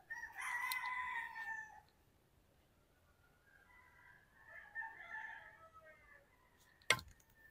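A rooster crows for about a second and a half, followed by fainter, broken calls around the middle. Near the end comes a single sharp click of a pool cue tip striking the cue ball.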